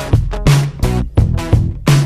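Background music: an upbeat funk-style track with plucked guitar and a pulsing bass line.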